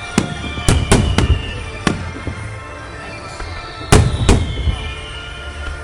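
Aerial fireworks bursting overhead: a run of sharp bangs in the first two seconds and a louder pair about four seconds in, with falling whistles between them.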